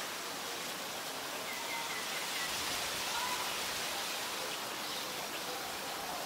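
Steady outdoor background hiss with a few faint, short chirps.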